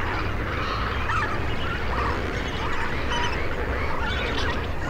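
A large flock of lesser flamingos calling together: a dense, steady chatter of many overlapping short calls.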